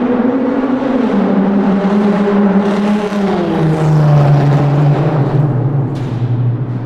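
Car engine running through a tunnel, its pitch dropping in steps about three and four seconds in as the car slows or shifts.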